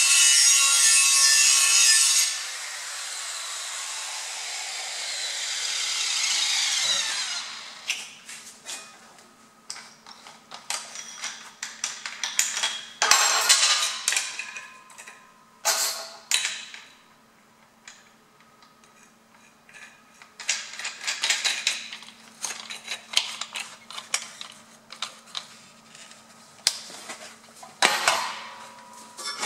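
Angle grinder grinding steel for about two seconds, then its disc whining down in pitch as it coasts to a stop over about five seconds. After that, scattered clicks and knocks of the grinder being handled as its disc is changed for a 2.5 mm cutting disc, over a faint steady hum.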